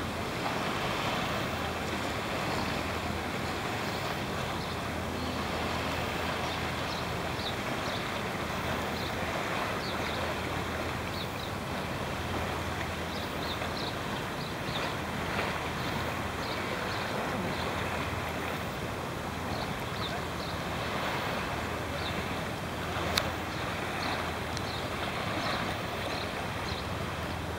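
Sea water lapping and washing close to the microphone, a steady rushing noise with wind on the microphone and many small splashes. One sharp tap near the end.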